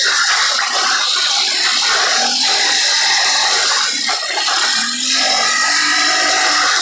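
Four-stroke ATV engine running under way, its pitch rising and falling a few times with the throttle, buried under heavy wind rush on the handlebar-mounted microphone.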